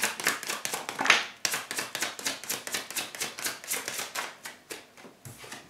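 A deck of tarot cards being shuffled by hand: a quick, uneven run of soft card slaps and clicks, growing quieter near the end.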